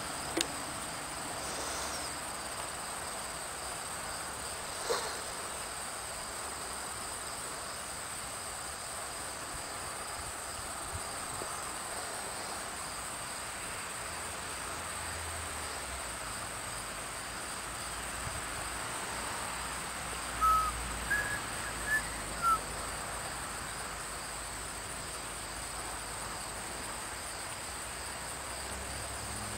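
Crickets chirring steadily at a high pitch. About two-thirds through come four short high chirps, and there is a faint click near the start.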